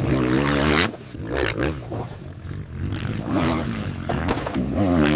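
Motorcycle engine revving in several throttle bursts, its pitch wavering, with a rough scraping noise over it.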